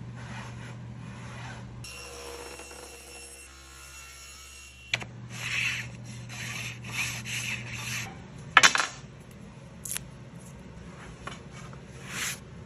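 Wood being slid and rubbed against wood in a series of short scraping strokes, with one sharp loud knock a little past the middle and a lighter click after it, over a low steady hum.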